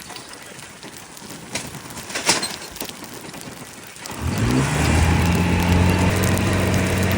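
Scattered cracking and snapping, then about four seconds in a heavy machine engine comes in loud, rises briefly in pitch and runs steadily.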